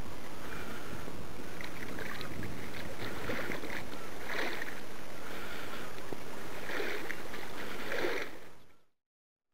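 Water splashing again and again as booted feet kick at the surface while swimming on the back, over steady wind noise on the microphone. The sound fades out near the end.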